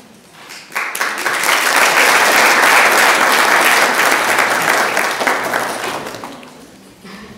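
Audience applauding: the clapping starts about a second in, swells, and dies away shortly before the end.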